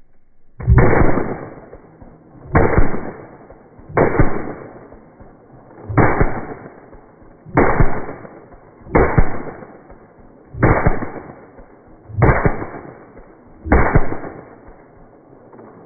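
Pistol caliber carbine firing nine single shots, roughly one and a half seconds apart, each crack trailing off in a short echo.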